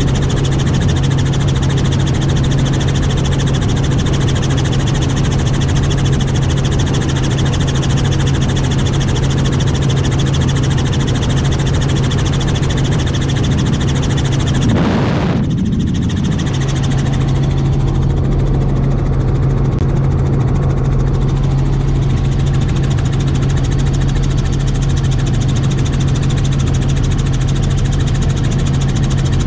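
Helicopter cabin noise: the rotor and engine drone steadily under a strong, constant low hum. The higher hiss drops away for a moment about halfway through.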